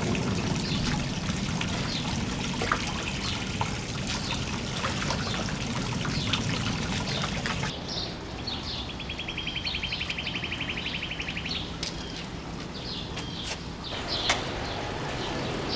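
Water trickling steadily, with birds chirping and a fast, even bird trill a little past halfway.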